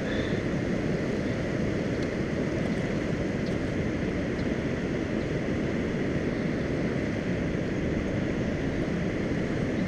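Steady low rush of fast, turbulent river water churning below a dam, with no distinct events.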